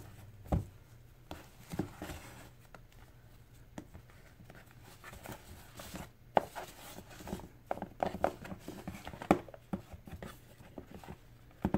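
Hands untying a ribbon from a small cardboard gift box and handling the box: soft rustling with scattered light taps and clicks, sparse at first and busier in the second half.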